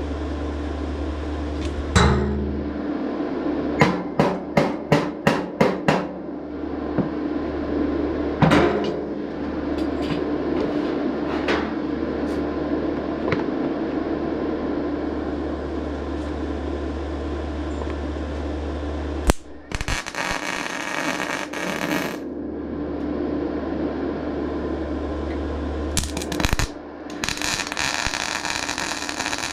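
Electric arc welding on a sheet-steel tractor nose cone: a crackling, hissing run of about two seconds some two-thirds of the way in, then a short burst and a longer run near the end. Earlier, a quick series of about seven sharp metallic taps, with a steady low hum underneath throughout.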